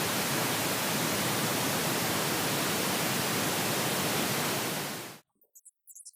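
Steady pink noise from a surround-sound speaker test signal. It cuts off abruptly about five seconds in, and faint scattered high ticks follow near the end.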